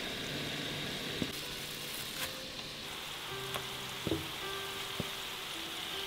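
Star-shaped wontons deep-frying in a pan of oil at low heat, giving a steady sizzle with a few sharp pops.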